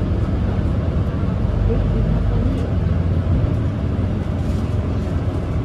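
Steady low rumble of a city bus on the move, engine and road noise heard from inside the cabin.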